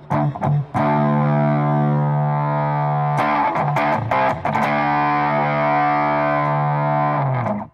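Electric guitar through Source Audio LA Lady Overdrive and El Raton distortion pedals: distorted chords strummed and left ringing, picked again about three seconds in, then cut off just before the end. An expression pedal moves the tone between low drive with heavy bass and little treble and more drive with little bass and a lot of treble.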